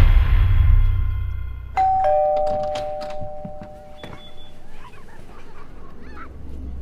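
A two-tone ding-dong doorbell chime: a higher note about two seconds in, then a lower one just after, both ringing on and fading over a couple of seconds. Before it, the low tail of a loud hit dies away, and a few faint clicks follow the chime.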